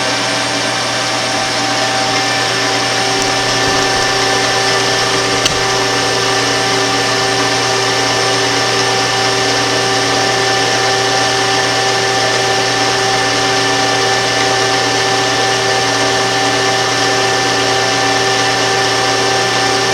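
Grizzly G0554 14x40 geared-head lathe running steadily under power feed while turning a steel workpiece, the headstock gearing giving a steady whine of several held tones. A single faint click comes about five and a half seconds in.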